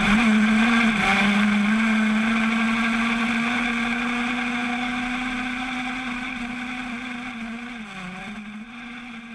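85 cc two-stroke crosskart engine held at steady high revs, with short dips in pitch about a second in and again near the end. The sound fades out gradually.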